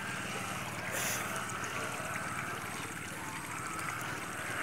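Muddy pond water sloshing and trickling as hands grope under the surface for mud crabs, with a brief splash about a second in, over a steady background hum.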